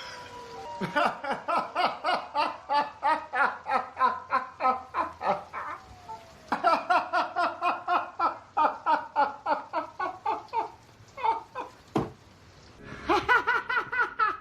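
Hearty laughter in long runs of quick, repeated ha-ha pulses, about four or five a second. It breaks off briefly about six seconds in and again for a moment shortly before the end.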